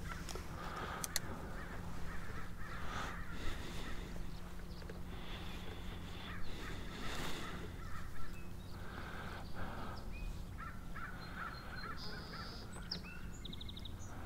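Scattered outdoor bird calls, crows cawing among them, over a steady low hum.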